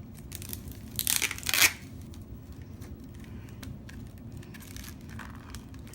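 Packaging being handled during an unboxing: a loud rustling, tearing burst about a second in, then faint scattered clicks of handling.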